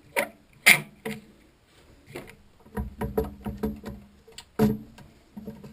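Metal tools and parts clanking and clicking as they are handled and set on a machine, a dozen or so sharp knocks with a short metallic ring, several in quick succession around the middle.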